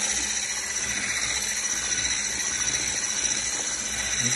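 Handheld electric whisk running steadily, its wire whisk beating cake batter in a plastic bowl, with a constant high motor whine.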